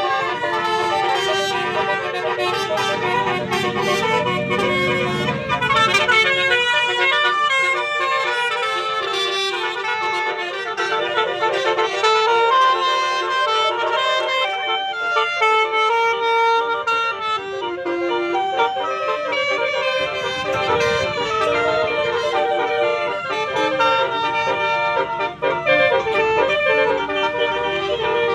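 Basuri musical horn on a bus playing a long melody of quickly changing notes, with a vehicle rumbling past twice.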